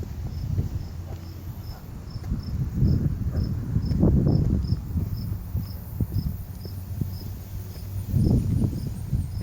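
An insect chirping steadily at a high pitch, about three chirps a second, over the irregular low thuds of footsteps on pavement.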